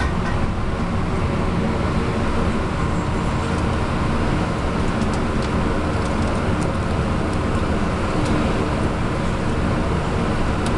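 Steady, loud rushing noise with a low hum from commercial kitchen equipment, the burner under the steaming pot and the ventilation, with a few faint light clicks from a wooden paddle stirring cheese curd in an aluminium bowl.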